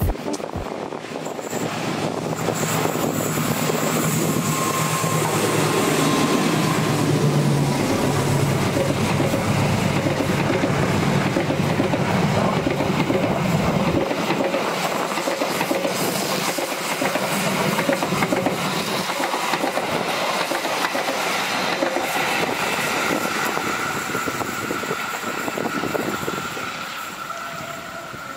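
Diesel-hauled train passing close by on a curve, with a steady rumble and clatter of its wheels on the rails.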